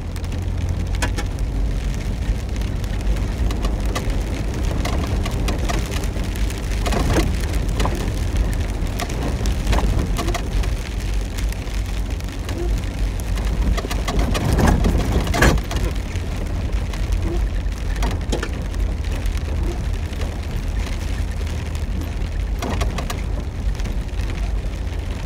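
A vehicle driving over a wet, rutted dirt road, heard from inside the cab: a steady low rumble under a noisy wash of water and grit, with scattered clicks and knocks over the bumps. The noise swells with heavier knocks about fifteen seconds in.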